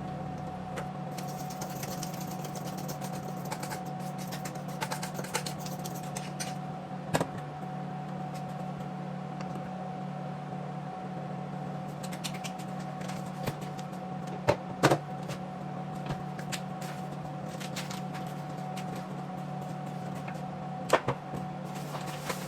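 Kitchen cleanup over a steady low hum with a faint whine: scattered light clicks and knocks of items being handled and put away, with a sharper knock about seven seconds in, two close together around fifteen seconds in, and another near the end.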